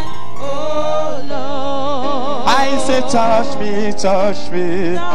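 Slow gospel worship music: held keyboard chords under singing voices with heavy vibrato, the singing swelling about halfway through.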